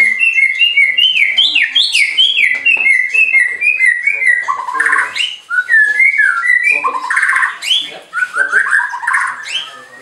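White-rumped shama (murai batu) singing a long, fast, varied song of clear whistled notes that rise and fall, with a few harsher chattering phrases mixed in.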